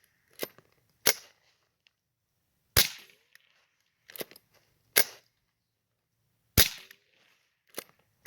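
.22 rifle firing CCI .22 Long rounds (29-grain lead bullets at about 700 fps): four sharp, light cracks one and a half to two seconds apart, with fainter sharp sounds between them. The reports are quiet for a firearm, damn near like a suppressor.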